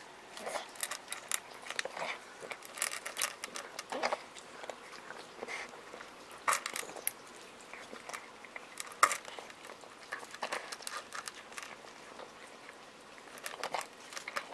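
A cat eating from a stainless steel bowl: irregular small chewing clicks and crunches, several a second, with a few louder ones.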